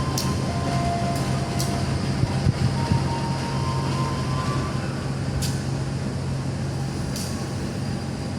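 Local passenger train running, a steady low hum and rumble with a few sharp clicks scattered through it.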